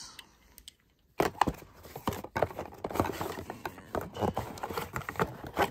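Cardboard packaging and bagged cables being handled: a run of small, irregular taps, knocks and rustles that starts about a second in after a brief silence.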